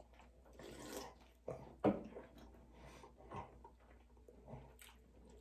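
Quiet chewing and mouth sounds of people eating Hot Pockets, with scattered small clicks and one sharper knock a little under two seconds in.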